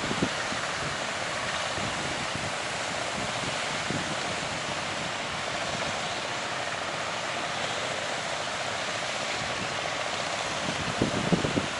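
Steady rush of surf and wind, with wind buffeting the microphone in irregular low thumps that grow heavier near the end.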